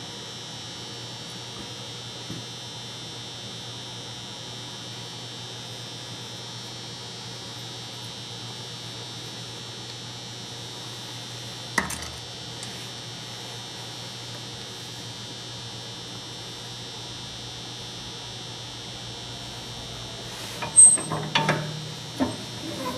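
Steady electrical hum throughout, broken by one sharp metallic click about halfway through and a few clinks and knocks near the end as small metal sander parts are handled at a bench vise.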